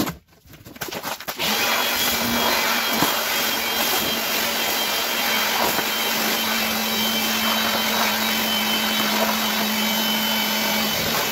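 Electric power tool running continuously at a steady speed: a loud, even hiss over a steady hum, starting about a second and a half in.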